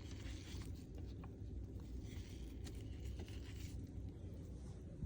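Faint rubbing of a damp cloth wiping a part of an espresso machine, with a few light clicks, over a low steady hum.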